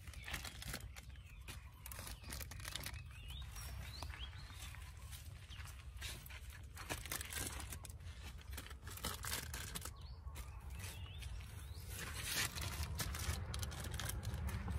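Plastic mushroom grow bags rustling and crinkling as oyster mushrooms are pulled off them by hand, with scattered small crackles and snaps, busier near the end.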